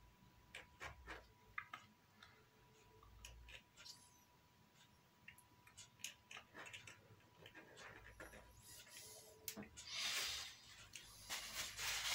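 Faint, scattered small clicks and taps as a super glue bottle is worked along a joint in the model's wooden parts, then tissue rustling about ten seconds in and again near the end.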